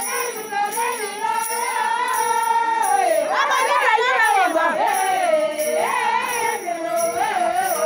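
Women's voices singing together in long, gliding phrases, with a steady high jingling carried along underneath.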